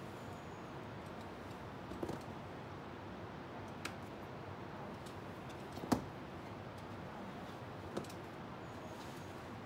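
A few short, sharp clicks and taps from a roped climber moving on a granite face, four in all, the loudest about six seconds in, over a steady background hiss.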